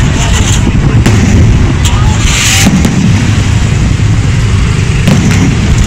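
Aerial fireworks shells bursting in a continuous barrage of booms and sharp reports over a steady low rumble, with a loud hiss a little over two seconds in.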